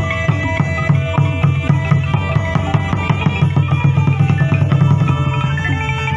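Cambodian pinpeat ensemble playing quick, dense drum strokes over ringing pitched percussion. The drumming grows thickest around the middle and eases off near the end.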